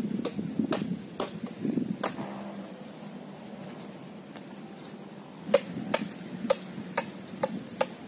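A blade chopping into a bamboo pole: sharp knocks about twice a second, four in the first two seconds, then after a pause six more in the last two and a half seconds.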